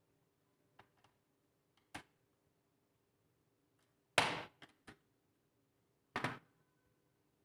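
Laptop and screwdriver being handled on a work surface: a few light clicks, then a loud knock about four seconds in followed by two small taps, and another loud knock about two seconds later.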